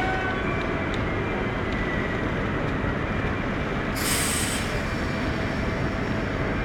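Steady rumbling noise from a Bombardier GLT guided trolleybus standing at a stop, with a short, loud hiss about four seconds in.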